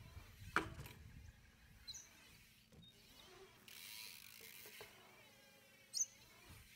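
BMX bike on concrete skatepark ramps: a sharp knock about half a second in, followed by tyres rolling, then a tyre rushing past about four seconds in and a short sharp click near the end.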